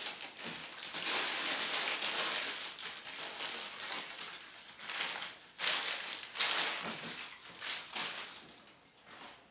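Wrapping paper crinkling and crumpling as it is torn off and balled up by hand, in uneven surges, with the loudest crinkling about five to seven seconds in and fading near the end.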